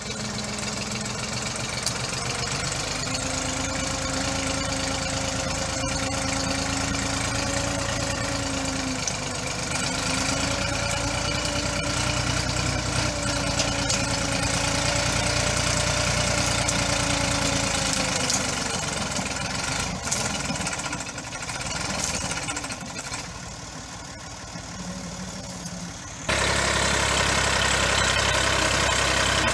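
Massey Ferguson 240 tractor's three-cylinder diesel engine running under load as it pushes into a thick bush, its note wavering slightly. It grows quieter about two-thirds of the way through, then jumps back louder and steady abruptly near the end.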